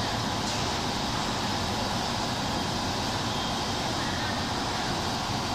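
Steady machine noise as a fiber laser cutter's dual exchange table shifts its pallets: an even, unbroken running sound with no distinct knocks.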